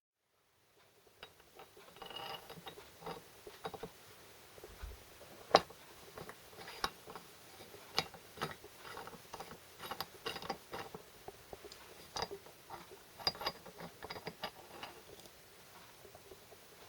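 Small metal parts being handled: irregular light clicks and knocks, the sharpest about five and a half seconds in.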